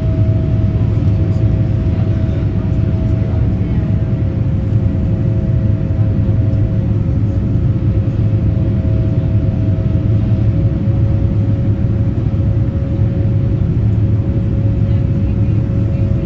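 Boeing 787-9 cabin noise during the climb after takeoff, heard from a window seat beside the engine: a steady deep rumble under a high engine whine, which settles slightly lower in pitch about a third of the way in.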